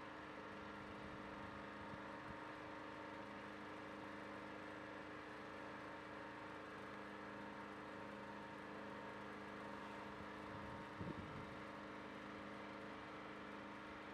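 A steady machine hum with several held tones, and a brief low rumble about eleven seconds in.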